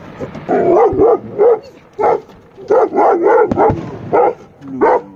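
A dog barking repeatedly, about two barks a second. Two dull firework bangs come in about one and three and a half seconds in.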